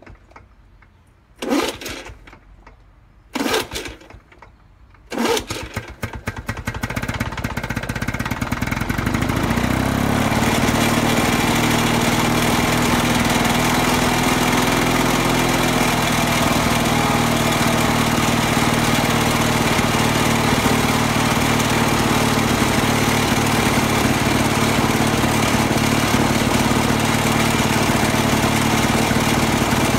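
International Harvester 3322 push mower's two-stroke engine being pull-started with its recoil starter: three pulls, catching on the third about five seconds in. It picks up unevenly, then settles into a steady run for the rest of the time, its first run after a carburetor clean.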